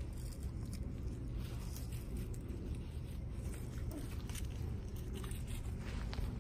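A Maltipoo and a Toy Pomeranian play-wrestling: scuffling and scattered light pattering and clicks, over a steady low rumble.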